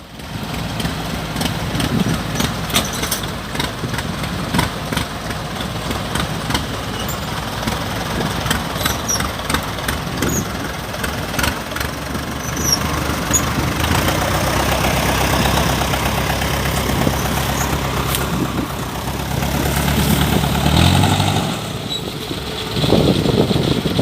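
Diesel engine of a Kubota DC-105X combine harvester running, with many sharp clicks and rattles over it. The engine note rises briefly about three-quarters of the way through, then drops away.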